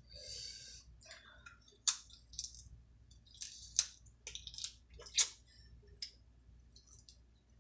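Snow crab shells being cracked and picked open by hand: a run of sharp cracks and clicks, three louder than the rest, with a brief wet sucking noise near the start.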